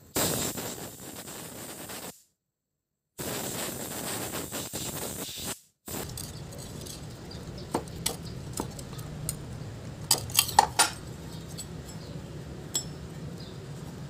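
Compressed-air blow gun hissing steadily as it blows out a washing-machine gearbox bearing. The hiss stops dead about two seconds in, returns about a second later and stops dead again. Then come scattered metallic clinks and knocks from handling a washing-machine gearbox, with a quick cluster of clinks about ten seconds in.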